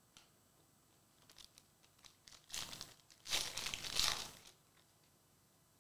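Foil wrapper of a Prizm Fast Break basketball card pack crinkling and tearing as it is ripped open by hand. A few light ticks come first, then two crinkling rips around the middle, the second one longer.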